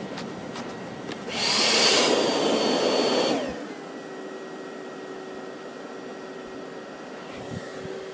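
Black Diamond JetForce avalanche airbag's electric fan blowing loudly with a high whine for about two seconds as the bag inflates, then settling to a steady lower hum. The airbag is being deployed by a skier caught in a slab avalanche.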